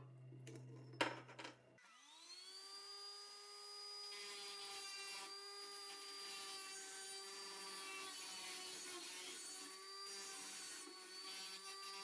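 A small electric power tool spins up about two seconds in and runs at a steady pitch, with a scraping hiss as it works on the toy truck's rusty steel. A couple of sharp knocks come just before it starts.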